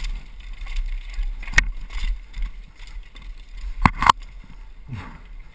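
Downhill mountain bike rattling over a rough dirt trail, heard from a camera mounted on the rider, with a steady low rumble of wind and tyres. There is a sharp knock about one and a half seconds in and two more in quick succession about four seconds in.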